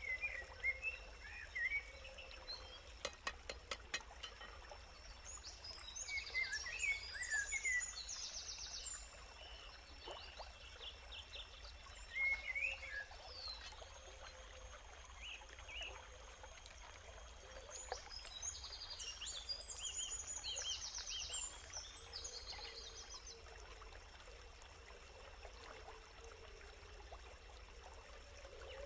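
Outdoor ambience: birds calling in short chirps, with a fast trilling phrase that comes twice, over a steady hiss of water. A few sharp crackles about three to four seconds in.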